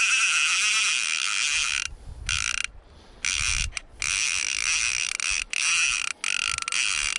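Fly reel's click-and-pawl drag buzzing as line is pulled fast off the spool, in several long runs broken by short pauses: a hooked Atlantic salmon running.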